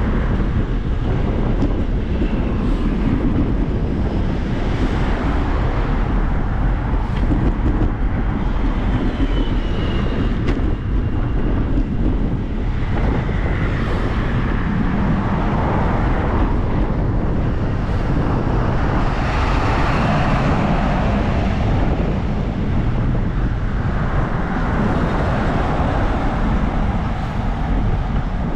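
Wind rushing over the microphone and road noise while riding a bicycle, steady and loud, with a few louder swells around the middle.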